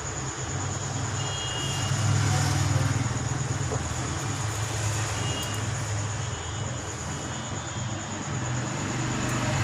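Steady low engine rumble that swells a little about two seconds in, with a constant thin high-pitched whine over it.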